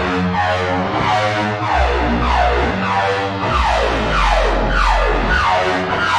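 Eurorack modular synthesizer playing a looping electronic pattern: a deep bass note that steps to a new pitch every second or so, under pitched tones and repeated falling pitch sweeps about twice a second, the synth's parameters being moved by an Acid Rain Technology Maestro modulation controller.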